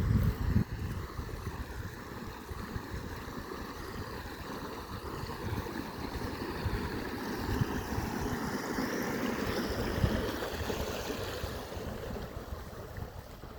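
River water gurgling and rushing unevenly over stones and rocks, a continuous splashy flow that swells a little in the middle of the stretch. A few low rumbling thumps come right at the start.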